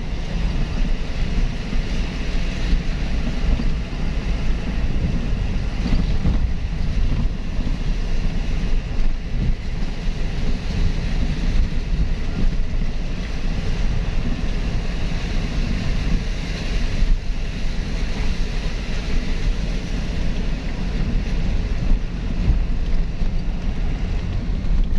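Steady rumble of a vehicle driving over a rough, wet, rock-strewn road, heard from inside the cab, with wind noise on the microphone.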